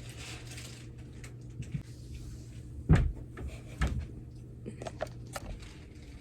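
Two sharp knocks about a second apart, then a few lighter clicks, like a cupboard or door being closed, over a steady low room hum.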